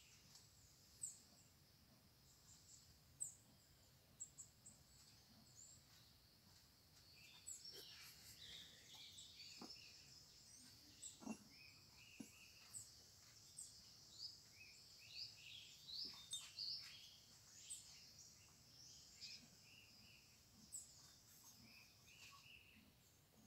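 Faint birds chirping on and off with short, high calls, over a quiet background. A few soft knocks come about halfway through.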